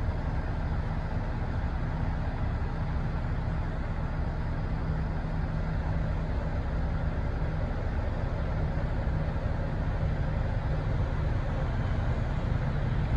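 Steady low rumble of motor vehicles, with a constant engine-like hum and no break in it.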